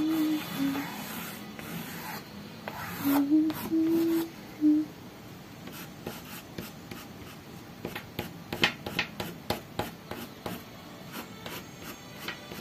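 Pastel crayon rubbing and scratching on paper in short, irregular strokes, several a second, thickest in the second half as a yellow pastel is worked in. Soft background music plays a few held notes in the first half.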